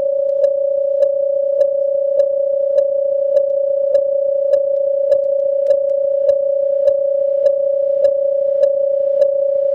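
Japanese railway level-crossing alarm: an electronic crossing bell ringing a steady tone, struck about every half second, warning of an approaching train.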